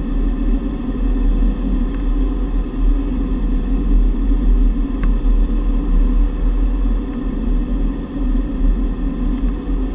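Steady rumble of air rushing over a G103 Twin Astir glider's cockpit on aerotow, with a steady engine drone from the tow plane ahead running under it.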